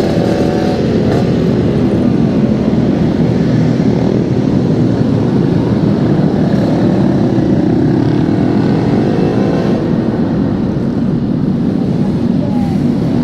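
Yamaha RX-King 135cc single-cylinder two-stroke engine with an aftermarket exhaust, running steadily while the bike is ridden, its revs rising and falling with the throttle.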